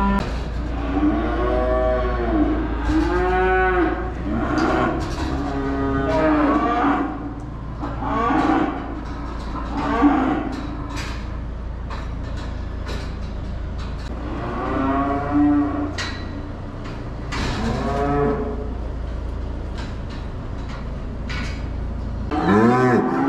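Several beef cows mooing over and over, their calls often overlapping, with occasional short sharp knocks. A steady low hum runs underneath and stops near the end.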